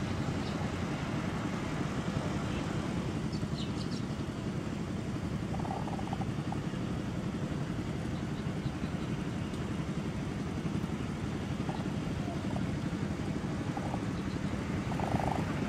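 Steady low rumble, with a few faint short chirps now and then.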